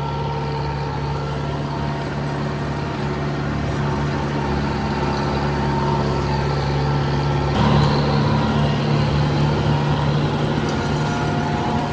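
Tractor engine running steadily while mowing a fire break. About seven and a half seconds in, the engine note steps up a little and gets louder.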